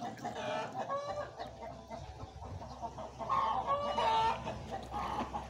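Chicken clucking in short pitched calls, with a louder run of clucks about three and a half to four seconds in.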